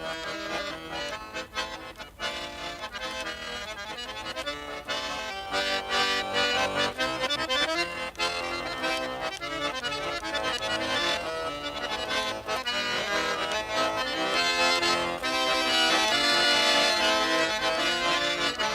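Accordion playing an instrumental interlude of a Russian folk song, getting louder in the second half.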